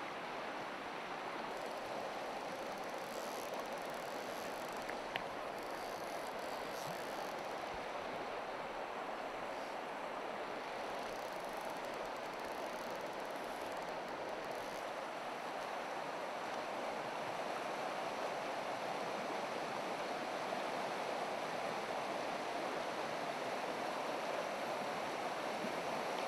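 Shallow river running over gravel and stones: a steady rushing that grows slightly louder near the end. A single faint click sounds about five seconds in.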